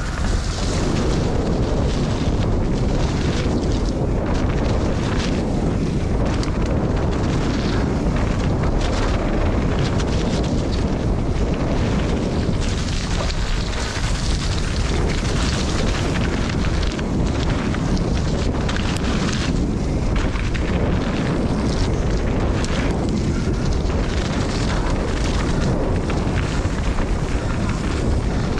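Mountain bike descending a muddy trail at speed: wind rushing over the camera microphone, with tyre noise and the bike rattling and knocking over bumps.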